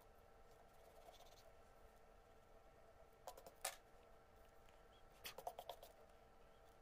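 Faint taps and short scratches of a pencil tip on paper, in two quick clusters, about three and a half seconds in and again about five and a half seconds in, over a faint steady hum.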